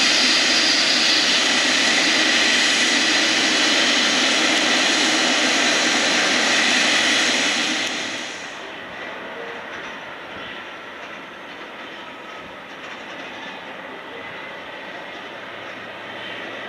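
General Electric GE90-115B turbofan of a Boeing 777-300ER running steadily close by, a loud rush with a steady whine. About eight seconds in it drops to a quieter, duller, more distant engine sound.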